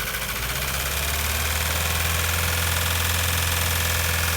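Ford Focus 1.6 engine running under a light throttle. About a second in, the revs rise a little above idle and hold steady. The engine was rebuilt 20,000 km earlier, and the mechanic is troubled by its loud noise and knock.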